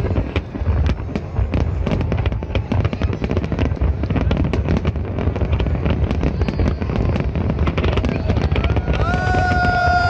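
Large fireworks display: a dense, unbroken barrage of shell bursts and crackling over a deep rumble. Near the end, steady whistling tones join in.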